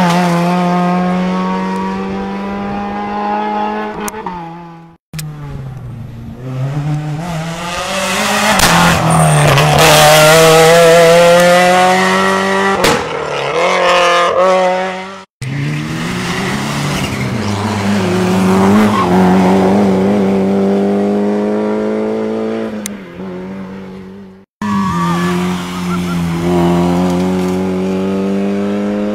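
Small front-wheel-drive rally cars, among them a Suzuki Swift and a Renault Clio, driven hard one after another, engines revving high. The pitch climbs through the gears and falls on lifting and braking. The sound cuts off abruptly three times where one car's clip ends and the next begins.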